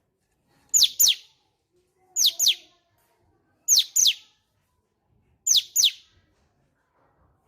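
Cucak cungkok bird calling: four pairs of quick, high, downward-sliding whistled notes, the two notes of each pair close together and the pairs repeated about every second and a half.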